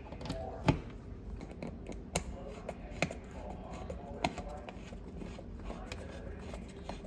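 Irregular light clicks and taps, with a few sharper knocks: the loudest about a second in, then others at about two, three and four seconds in.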